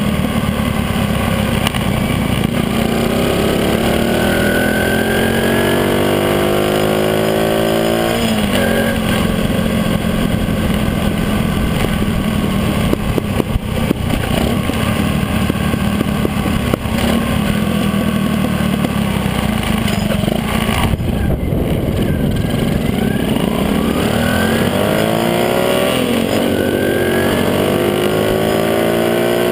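Small motorcycle engine under way, heard from onboard. It rises in pitch under acceleration, drops suddenly at a gear change about eight seconds in, runs fairly steadily, then climbs again near the end, over a constant bed of road noise.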